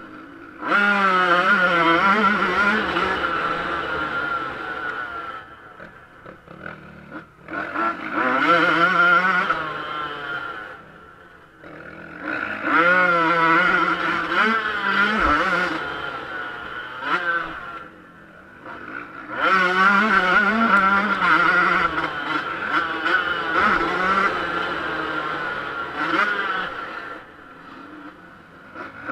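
Yamaha YZ125 two-stroke motocross engine revving hard on the throttle, its pitch rising and falling through the gears, easing off to a low burble four times before picking up again.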